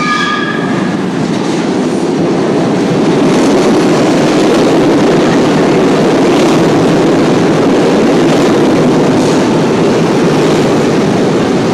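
SEPTA Market-Frankford Line M4 subway train pulling into the underground platform, a loud steady rumble of wheels on rail that swells about three seconds in as the cars run past. A few high squealing tones sound in the first second.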